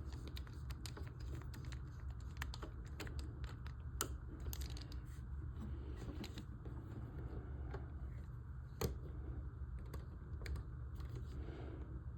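Small screwdriver working screws into plastic model parts, with the parts being handled: irregular light clicks and taps, and two sharper knocks about four and nine seconds in, over a steady low hum.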